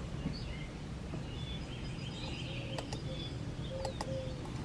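Low steady room noise with faint high chirps in the background, and two or three sharp clicks about three and four seconds in, most likely a computer mouse being clicked.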